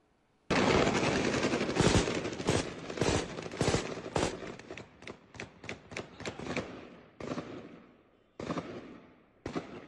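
Gunfire: a long rapid burst of shots starts about half a second in, followed by separate shots that thin out over the next few seconds, then two more shots near the end.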